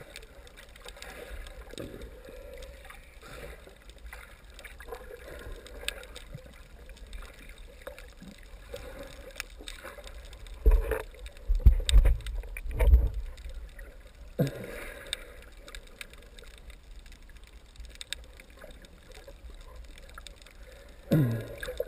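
Muffled water sounds picked up by a camera under water: sloshing and gurgling near the surface as a snorkeler swims. A few loud low thumps come about halfway through.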